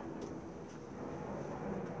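Quiet workshop room tone with a few faint small clicks of handling.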